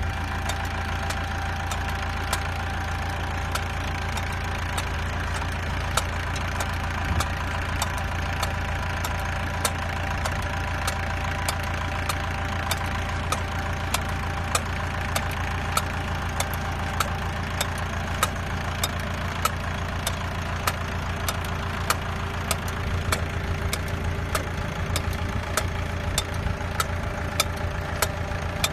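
Tractor engine running steadily while pulling a two-row vegetable transplanter, with frequent sharp clicks about once or twice a second.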